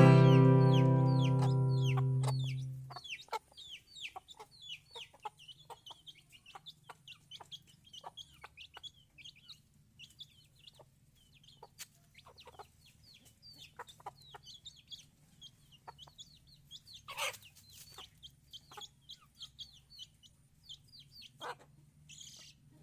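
An acoustic guitar chord rings out and fades over the first few seconds, then free-range village chickens call: a steady stream of short, high, falling peeps, with a couple of louder, sharper sounds later on.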